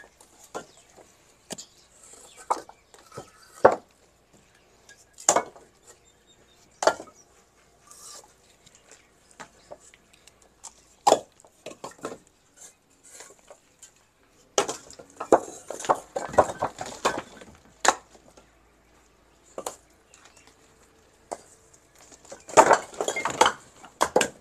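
Fired clay bricks being pulled out of a brick wall and dropped onto a pile: single sharp clacks of brick on brick, with clattering runs of several bricks knocking together about fifteen seconds in and again near the end.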